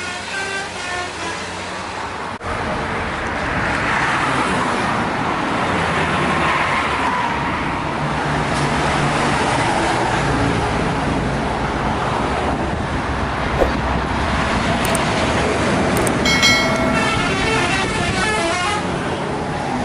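Heavy vehicles rushing past on a highway with a rising and falling roar of engine and tyres, then about 16 seconds in a bus's telolet horn plays a short melody of changing tones for about two seconds.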